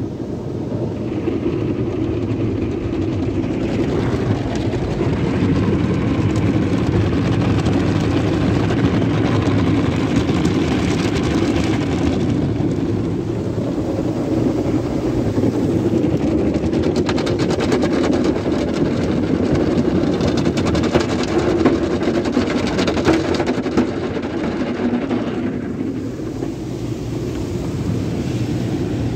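Sonny's tunnel car wash equipment heard from inside the car: water spray and cloth brushes working over the body and windows, a steady dense wash noise. It grows louder a few seconds in, with a fast patter of slaps through the middle, and eases near the end.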